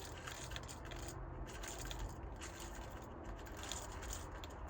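Hot salt being poured through fingers into a salt grinder, a faint grainy rustle and scrape of the crystals running in.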